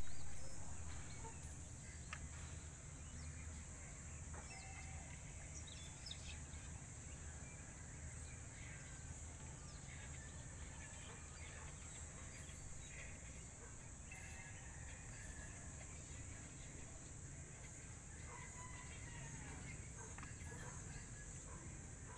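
Faint outdoor ambience: a steady hiss and low hum with scattered faint, short bird calls. A louder noise at the very start fades away within a second or two.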